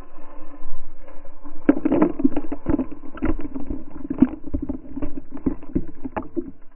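Radio-controlled Traxxas Rustler truck on paddle tires tearing through a muddy puddle right at the camera. From about two seconds in comes a dense, irregular splatter of water and mud hitting the camera, over the steady drone of the truck.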